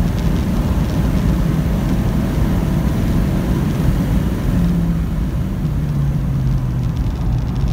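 Mazda MX-5 ND's 1.5-litre four-cylinder engine running hard at track speed, under heavy wind and road roar. Its note drops lower in the second half.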